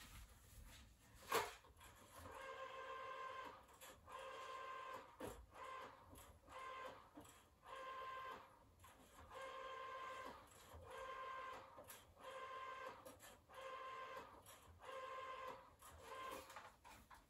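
Telephone call being placed: after a single knock about a second in, the phone gives a faint electronic beep at one fixed pitch, pulsing on and off in bursts of uneven length.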